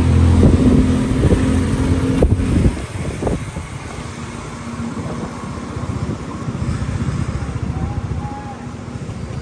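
Engine of a motor vehicle running close by with a steady low hum, dropping away sharply about two and a half seconds in, leaving a steady background of street traffic.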